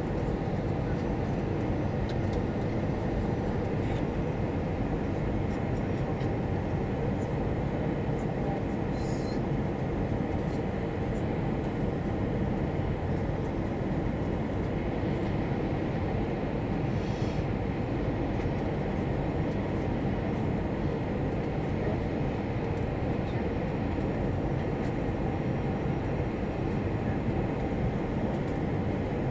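Steady cabin noise inside an Airbus A320 airliner: a constant low rumble from the engines and the aircraft around it, with no change in level.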